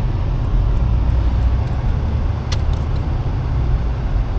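Vehicle interior on the move: a steady low rumble of engine and road noise, with a few short clicks about two and a half seconds in.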